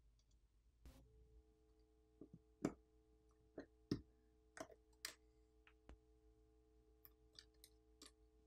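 Faint, scattered clicks and ticks of small repair tools and phone parts being handled during a smartphone teardown, over a faint steady hum that starts about a second in.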